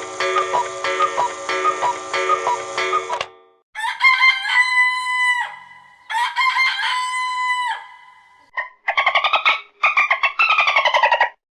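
The close of a chiming, ticking clock-style alarm tone, then a phone alarm tone built from a recorded rooster crowing twice, each crow sliding up into a long held note, followed by three bursts of rapid pulsed calls.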